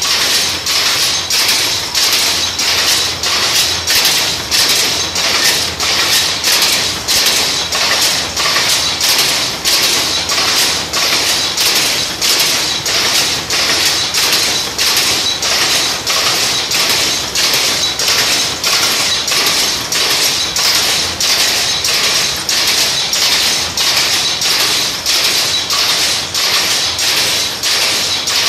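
A 4×4 pick-and-pick power loom with a jacquard head weaving at full speed. It makes a loud, steady clatter of sharp knocks, about two a second, as the shuttle is picked across and the sley beats up each pick.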